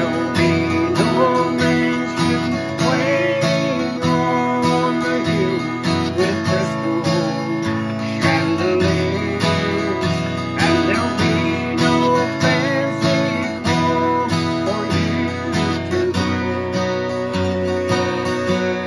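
Steel-string acoustic guitar, capoed, strummed in a steady rhythm through a run of chords.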